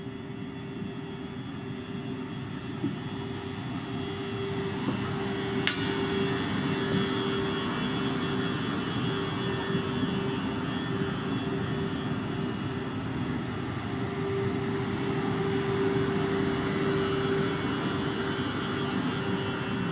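A train running along its track, a steady rumbling with one constant tone, slowly growing louder. A single sharp click about six seconds in.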